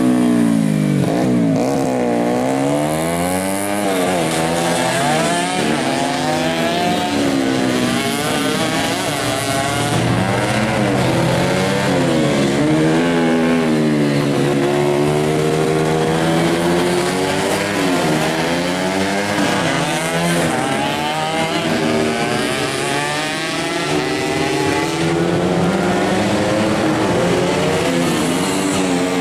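Two racing-tuned underbone motorcycles being revved over and over, their engine pitch climbing and dropping every second or two, the two engines' notes overlapping.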